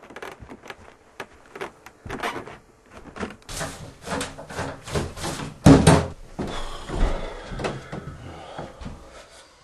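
A busy, irregular run of knocks, clicks and clatter of things being handled and shut, with a louder bang just before six seconds in.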